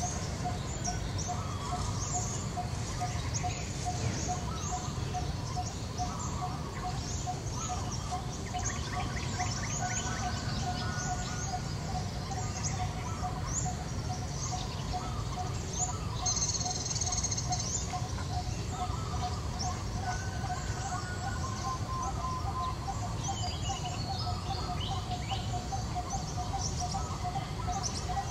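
Many small birds chirping and twittering, with one low note repeated steadily a few times a second, over a low background rumble.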